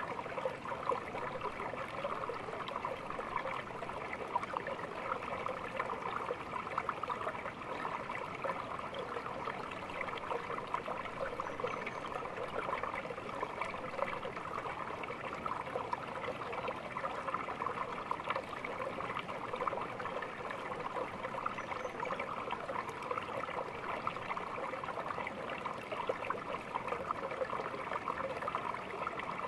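A small stream flowing and trickling over stones, a steady babble of water with a bright gurgling texture.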